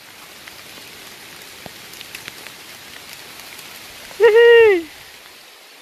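Steady rain falling on grass and leaves. About four seconds in, a single short high-pitched call rises then falls in pitch.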